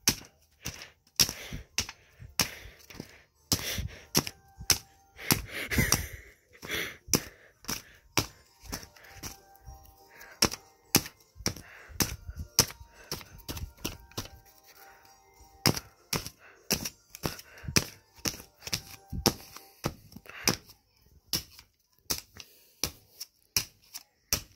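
A paper cutout lying on a bedspread being struck over and over: sharp, irregular knocks and thuds, about two a second, as the paper is beaten and crumpled.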